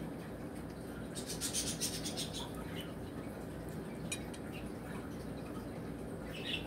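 Quiet sounds of a child eating soup from a bowl: a run of small clinks and wet, liquid noises about a second in, with a few more brief ones later, over a steady low room hum.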